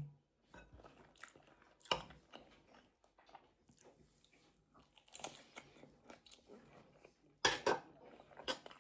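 A person eating close to the microphone: irregular chewing and crunchy bites of food, with the loudest crunches near the end.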